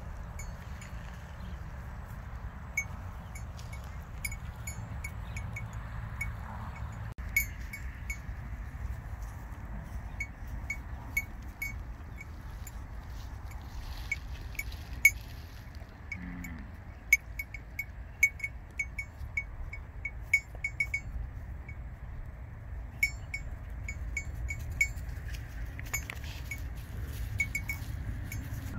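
Small metal cattle bell tinkling in short, irregular clinks, over a low steady rumble.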